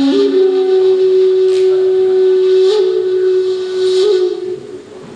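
Shakuhachi (end-blown bamboo flute) holding one long, breathy note, lifting slightly in pitch twice before fading out near the end.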